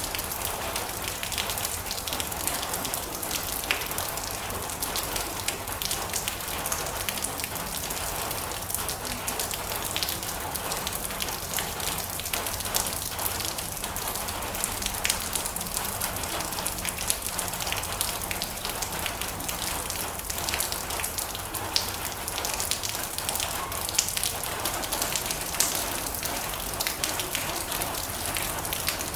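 Steady rain falling on a metal roof: a dense hiss of drops with many small, sharp individual drop ticks.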